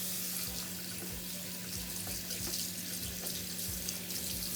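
Tap water running steadily from a faucet into a sink as a wig's lace front is wetted under it.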